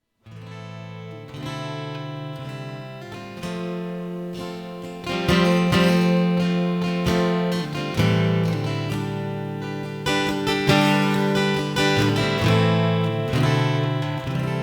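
Acoustic guitar playing a strummed chord intro, starting from silence just after the beginning and growing louder about five seconds in.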